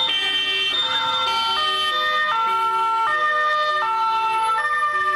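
Several two-tone emergency vehicle sirens sounding at once, each switching back and forth between two pitches about every three-quarters of a second, out of step with one another. A short falling glide is heard about a second in.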